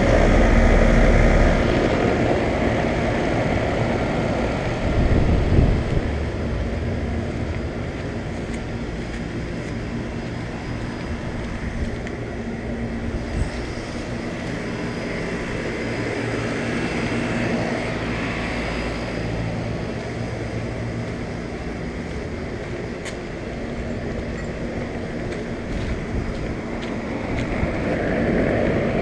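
Several running central air conditioner condensing units: a steady fan whoosh with a low compressor hum, growing louder as each unit is passed, loudest just after the start and again about five seconds in.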